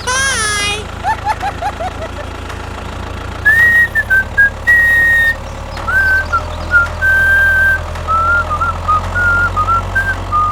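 A whistled tune, one clear note at a time, over a steady low hum. It opens with a sliding cartoon-style sound effect and a quick run of short rising chirps.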